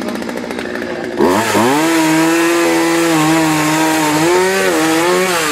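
Chainsaw running, revved to full throttle about a second in and held at high revs while cutting into a fallen tree limb, then easing off at the end.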